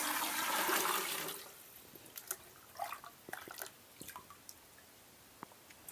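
Water running into a 2.5-litre jug, stopping about a second and a half in, followed by a few scattered drips and light clicks.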